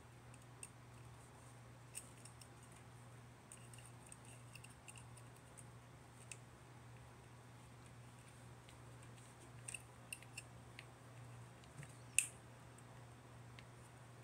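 Faint, scattered small plastic clicks and snips of Gunpla model kit parts being cut and fitted together, with a handful of clicks around ten seconds in and the loudest one just after twelve seconds, over a low steady hum.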